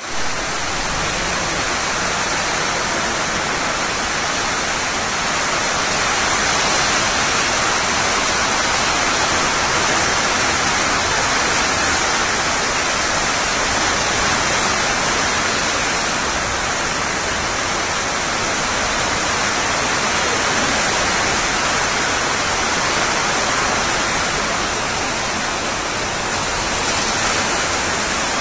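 Heavy rain and strong wind of a cyclone, a loud, steady rushing noise.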